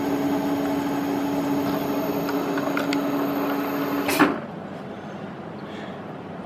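Milling machine at about 760 RPM, driving a 4-flute carbide end mill dry into a hard broken stud: a steady hum with a high whine over the cutting noise. About four seconds in it cuts off suddenly with a clunk, leaving a quieter steady noise.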